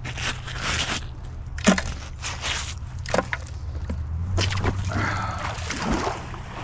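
Rusty debris being scraped and pulled off a magnet-fishing magnet by gloved hands: a run of irregular, gritty crunching scrapes, the loudest about one and a half seconds in.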